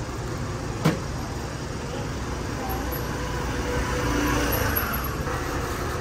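Busy street-market ambience: a steady din with indistinct voices in the background, and one sharp knock about a second in.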